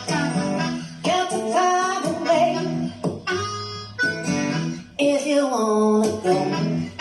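Music played through a 12-inch mid-range speaker rated 500 W max during a sound test: a guitar-backed song with a gliding melody line over steady chords.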